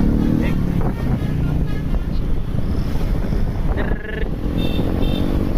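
Steady road rumble of a large bus passing close by, with wind buffeting the microphone; a few short high-pitched sounds about four to five seconds in.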